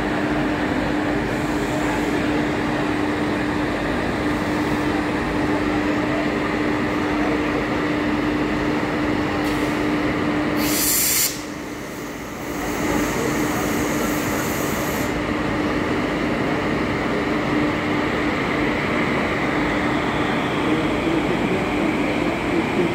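Indian Railways electric locomotive standing with its on-board machinery running: a steady loud hum with one held tone. About eleven seconds in comes a short hiss, then the running sound drops for about a second before building back up.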